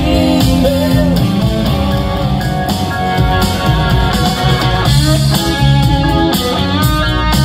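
Live rock band: a Strat-style electric guitar played through a Line 6 HX Stomp's Marshall Plexi amp model with a Greenback 4x12 cabinet impulse response, over drums, bass and keyboards. Early on the guitar bends a note up and back down.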